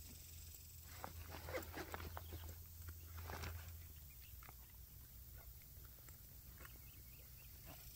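Faint rustling and clicking of hands rummaging in a backpack, busiest in the first half, over a low hum that fades out about halfway through.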